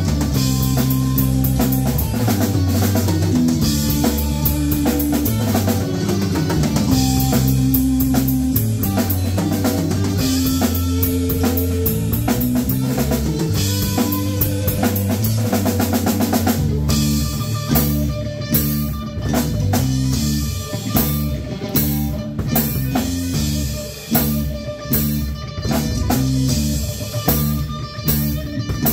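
Live rock band playing an instrumental passage on electric guitar, electric bass and drum kit. About halfway through, the dense full-band sound gives way to sparser, separate hits with short gaps between them.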